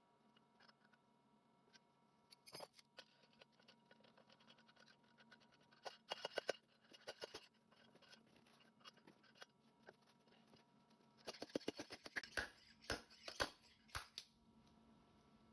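Quiet clicking and scraping of small metal parts and hand tools being handled, with two runs of rapid clicks, about six seconds in and again from about eleven to fourteen seconds in.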